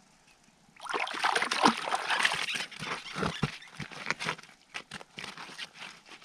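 Water sloshing and splashing in an ice-fishing hole as a hooked splake is brought up through it. The sloshing starts about a second in, is loudest for the next three seconds, then thins to scattered small splashes and clicks.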